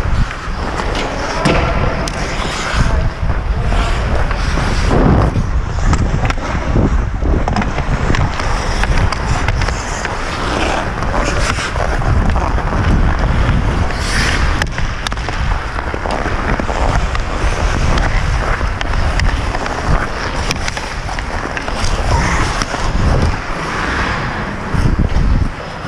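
Ice hockey skates scraping and carving on the ice as the player skates, with frequent knocks and clicks of the stick blade on the puck and ice.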